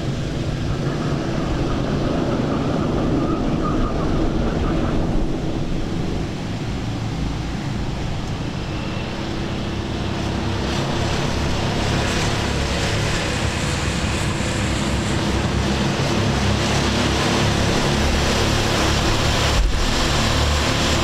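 Go-kart engines running at race speed, several karts passing on the circuit; the engine noise builds about halfway through as a pack of karts comes by.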